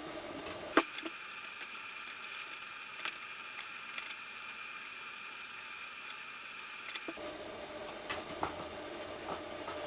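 Steady background hiss with a few light clicks and taps of metal parts being handled, the sharpest single click about a second in.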